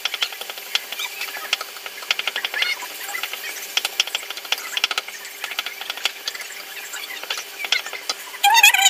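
Wooden spatula scraping and tapping against a nonstick frying pan in quick, uneven strokes while onions and tomatoes are stirred as they sauté, with faint sizzling. A brief high-pitched sound comes in near the end.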